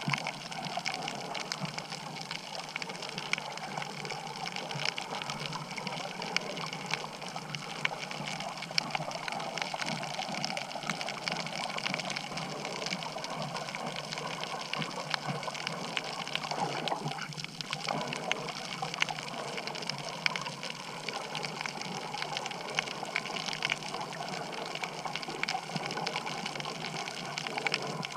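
Underwater ambience over a coral reef picked up by a submerged camera: a steady rush of moving water, peppered with many small crackling clicks.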